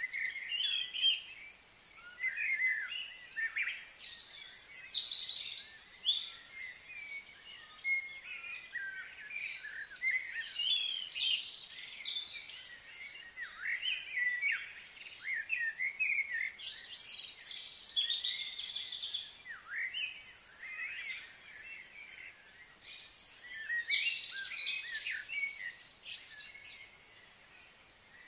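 Small birds chirping and twittering in quick, overlapping calls, a busy chorus that thins out near the end.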